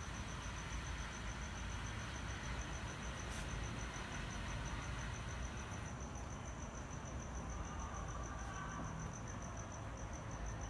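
A high, evenly pulsed chirping, about five pulses a second, over a steady hiss.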